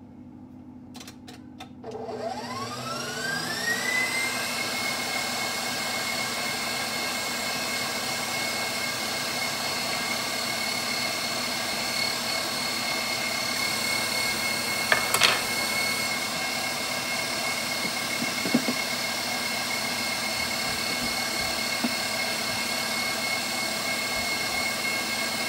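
KitchenAid Professional HD stand mixer driving the pasta press attachment: after a couple of clicks the motor starts with a whine that rises in pitch over about two seconds, then runs steadily as the auger extrudes spaghetti. A short clack about halfway through.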